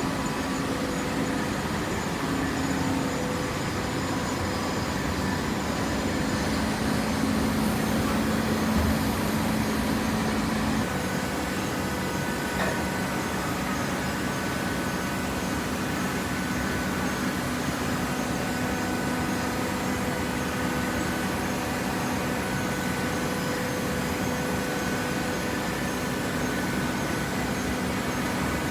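Vertical hydraulic baler's electric motor and hydraulic pump running steadily, with a low hum that shifts slightly in pitch about eleven seconds in.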